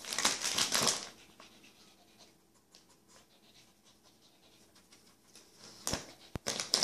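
Shiny wrapping paper crinkling as a Lhasa Apso noses and pulls at a wrapped gift: a burst of crinkling in the first second, a quiet stretch with faint rustles, then sharp crackles and more crinkling near the end.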